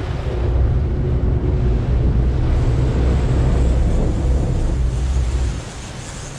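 Wind buffeting the microphone over the rush of the boat's white wake and the low rumble of its engines; the rumble eases a little near the end.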